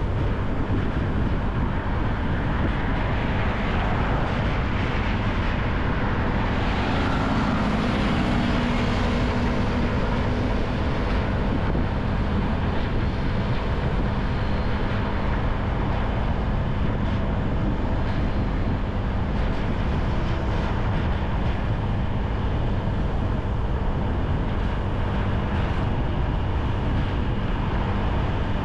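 Steady noise of a motorcycle ride through city traffic.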